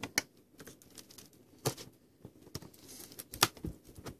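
Clear plastic shrink wrap being torn and pulled off a cardboard card box: scattered crinkles and sharp crackles with short quiet gaps.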